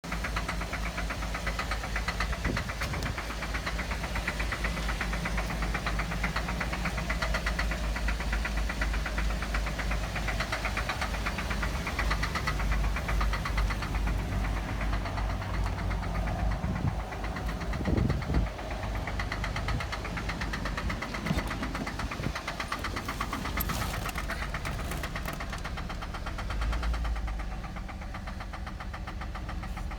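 2008 Cadillac CTS engine running with a steady, rapid knock all through: the engine knock the owner is recording.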